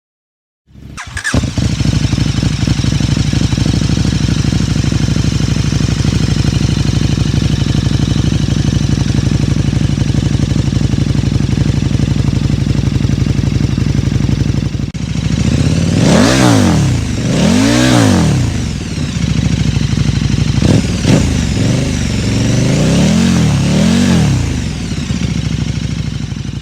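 KTM 1290 Super Duke R V-twin through a Bodis GPX2-S exhaust, idling steadily, then revved in a series of short throttle blips in the last ten seconds.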